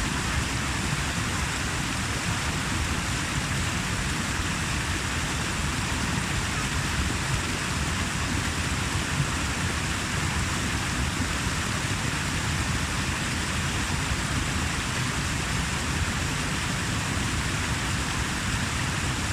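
Steady rushing of water, an even noise with no breaks or distinct splashes.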